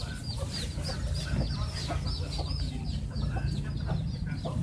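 Chickens peeping and clucking, a steady run of short, high calls several times a second, over a low background rumble.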